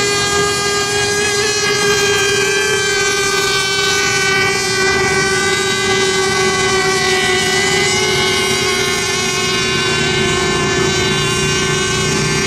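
RC racing boats' motors running flat out, a steady whine that drifts only slightly in pitch.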